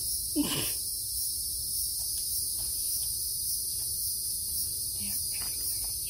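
Steady high-pitched chorus of insects shrilling without a break. About half a second in there is a brief falling vocal sound from a person.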